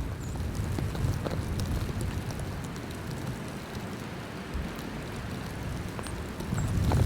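Blizzard wind buffeting the microphone as a steady low rumble that eases slightly midway. A few faint, high, brief chirps sound over it.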